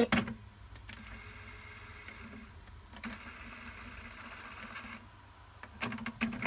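Denon DRW-850 cassette deck transport: a button click as playback stops, then the tape winding at high speed with a steady faint motor whirr. Further mechanism clicks come about three seconds in and again near the end as the deck changes mode and goes back into play.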